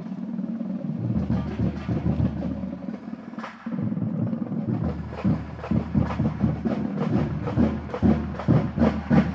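Drum corps marching off: quick, irregular percussive hits, busiest in the second half, over a steady low hum.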